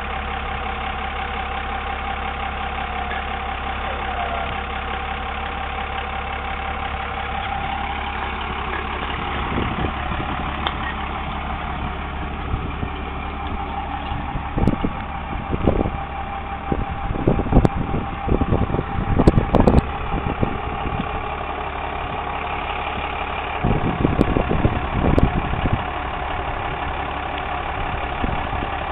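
Dodge 3500's Cummins turbo-diesel idling steadily, with a steady whine over it. Irregular low thumps and rumbles come in the middle and again near the end.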